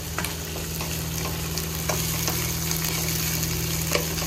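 Onions sizzling as they sauté in a pan on the way to caramelizing, over a steady low hum, with a few sharp clicks of the utensil stirring them against the pan.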